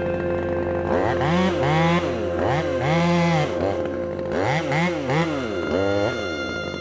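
Husqvarna T540 XP top-handle chainsaw with a small two-stroke engine, revved in a series of short bursts. Its pitch climbs and drops again about eight times, the blips coming roughly every half second.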